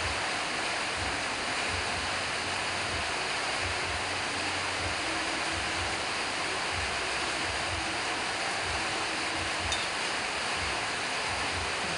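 Steady hiss of background noise, with faint irregular low thumps under it and a single small click about ten seconds in.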